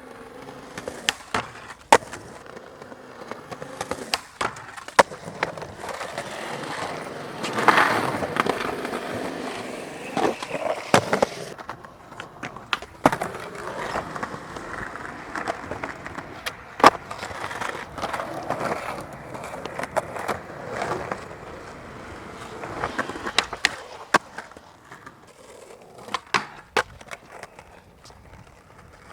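Skateboards rolling, with many sharp clacks of boards popping, landing and hitting the ground, the loudest a single crack about two thirds of the way through.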